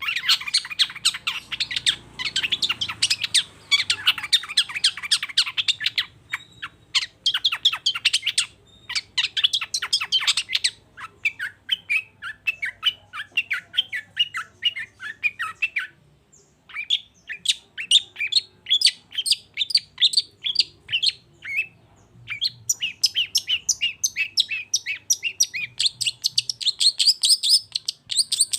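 Long-tailed shrike singing: rapid runs of sharp, chirping notes, broken by a few brief pauses.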